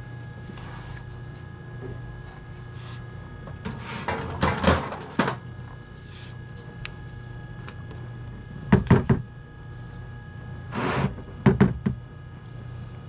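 Tools and small metal parts being handled while the oil screen is taken out of a motorcycle engine: three short bursts of clinks and knocks over a steady low hum.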